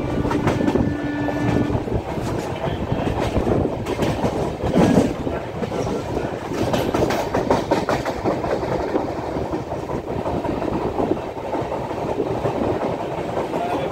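A passenger train in motion, heard from its open coach doorway: steady rolling noise of wheels on the rails with wind rush and irregular clacks. A steady tone stops about two seconds in.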